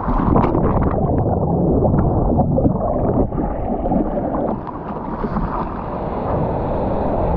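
Churning whitewash rushing and splashing around a surfboard ridden prone through broken waves, heard from a GoPro on the board right at the waterline, with many short sharp splashes over a steady rush of water.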